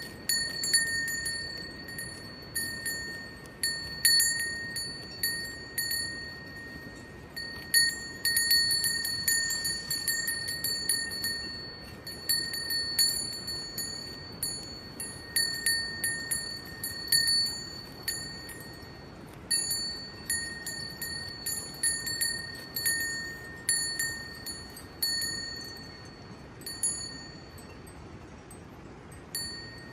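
A single metal bell ringing at one pitch, struck irregularly one to two times a second, the strikes growing weaker near the end.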